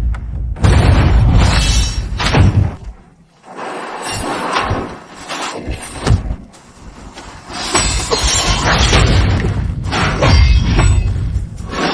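Anime sword-fight sound effects: heavy booming impacts and sharp crashing, shattering hits follow one another closely. The hits die away about three seconds in, a dense run of short clashes follows around six seconds in, and loud impacts return near the end.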